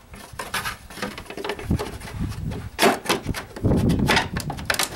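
Plastic air filter box cover being pushed and worked into place by hand, with irregular scraping, rubbing and clicks of plastic on plastic, loudest around the middle and again near the end.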